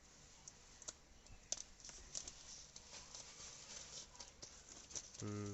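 Faint, scattered clicks and snips of scissors working at a stitched parcel wrapping.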